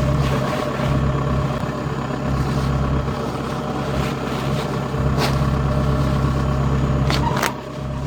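Rice combine harvester running steadily, a constant low engine drone with machinery noise over it. A few short sharp knocks stand out about five seconds in and again near the end.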